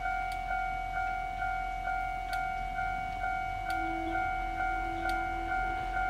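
Railway level crossing warning bell ringing in a steady repeating ding, about two strikes a second, the signal that a train is approaching and the barriers are down.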